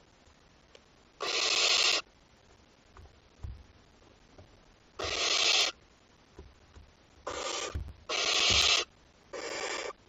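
Barn owl chicks hissing, the harsh begging call of owlets. There are five separate hisses, each under a second long and unevenly spaced, with faint shuffling thumps between them.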